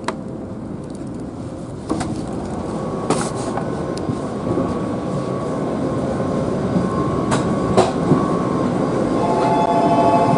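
A train running, its steady rushing noise slowly growing louder, with a few sharp clicks and steady whining tones coming in near the end.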